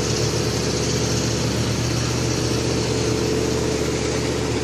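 Chevrolet Avalanche pickup's V8 engine running at a steady speed, holding one even pitch without revving.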